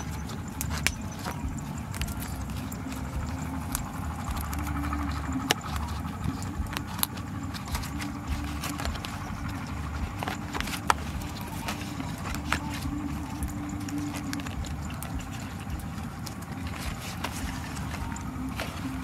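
Crinkling of a large leaf wrapping and the scrape of string as a leaf-wrapped bundle is tied and pressed by hand, heard as scattered short crackles and clicks. Under it a steady low rumble.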